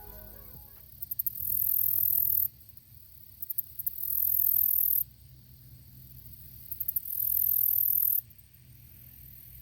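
Insect calling: three loud, very high-pitched buzzing calls, each starting with a few quick ticks and then holding steady for about a second and a half, spaced a few seconds apart. The last notes of background music fade out at the start.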